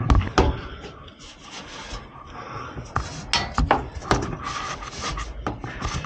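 Close handling noise against a gas furnace's sheet-metal cabinet: rubbing and scraping with scattered sharp clicks and knocks, bunched near the start and about three to four seconds in, and a low rumble near the end.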